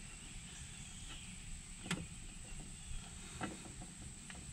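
A few faint light clicks as the standby magneto's connecting shaft on a Rolls-Royce 20/25 is pressed in and turned by hand, seeking its single indexing tooth so the magneto engages in time with the engine. A steady high thin whine sounds underneath.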